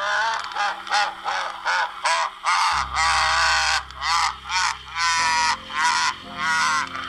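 Remco Baby Laugh-A-Lot doll's voice box laughing in quick repeated bursts, about three a second, with one longer laugh about three seconds in. The doll is running on dying batteries.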